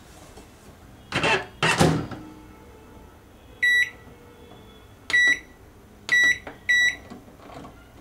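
Black Beauty microwave oven: two loud clunks about a second in as the door is shut, then four short electronic beeps from the control panel, one and then three more close together, as the cooking time is set for another two minutes.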